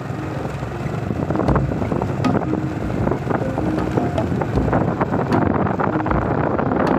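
Heavy wind buffeting the microphone while travelling along a gravel road, over the rumble of a moving vehicle, with scattered short knocks from bumps.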